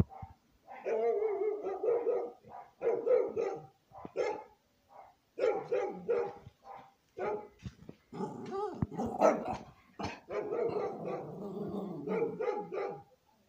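Small white dog barking over and over in quick runs of short barks, with brief pauses between the runs.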